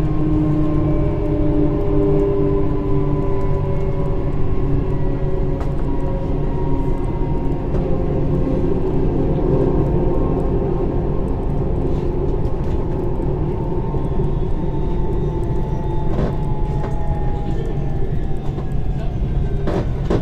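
Tram train running on railway track, heard from the driver's cab: a steady low drone with whining tones that slowly fall in pitch as it slows toward a station, and a few clicks near the end.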